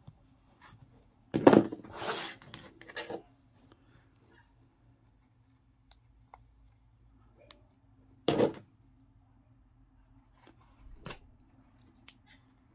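Handling noise of crochet work: fingers rubbing yarn and a crocheted piece, with a cluster of louder scuffs about one and a half to three seconds in and a short one near eight seconds in, as the crochet hook is put down on the table and picked back up. A faint steady hum underneath.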